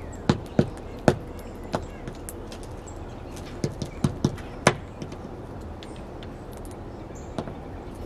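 A woodpecker pecking at seeds on a wooden platform feeder: sharp, irregular taps in two quick clusters, one in the first two seconds and one around four to five seconds in, with a single tap near the end.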